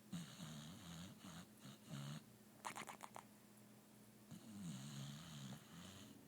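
A sleeping pit bull–boxer type dog snoring: two long, quiet, wavering snores, with a short rattling snort between them.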